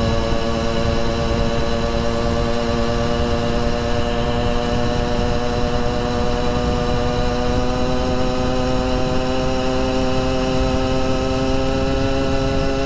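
Two-stroke engine of a motorized bicycle running at high revs under throttle, its note climbing slowly and steadily in pitch as the bike accelerates to about 33 mph. Wind rumble on the microphone sits underneath.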